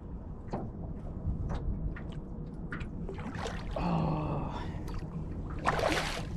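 Water splashing at a boat's side, with one loud splash near the end, over a steady low rumble and scattered small knocks.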